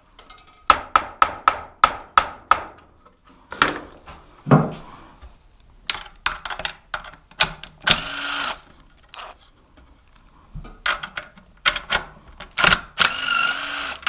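A quick run of sharp clicks, then a cordless drill/driver spinning up and down in two short bursts, about eight seconds in and again near the end, undoing the bolts of a motorbike's rear mudguard.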